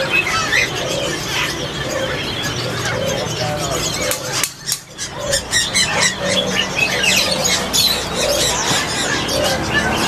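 A chorus of caged songbirds chirping and calling over each other, with a lower call repeating underneath and a steady hum of street traffic. The level drops briefly about halfway through.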